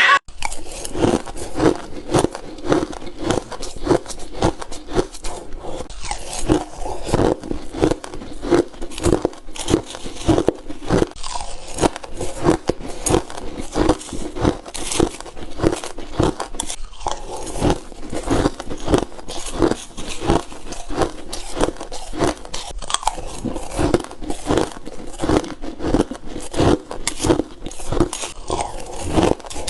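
A person biting and crunching crushed ice: rapid, irregular crunching bites, several a second, with brief pauses now and then.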